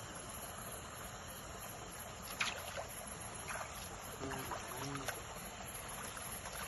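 Water moving faintly over a steady background hiss, with a few sharp light splashes or knocks a couple of seconds in and two short low calls or voice sounds near the middle.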